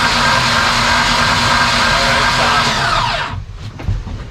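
Mercruiser 4.3 V6 marine engine being cranked over by its electric starter to build oil pressure: a loud, steady whirring whine. About three seconds in the starter is released and the whine falls away as the engine spins down, followed by a few light knocks.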